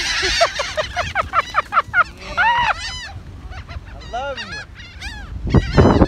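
A flock of seagulls calling overhead as they are fed: many short, overlapping cries, with a fast run of them in the first couple of seconds. A burst of rumbling noise comes in near the end.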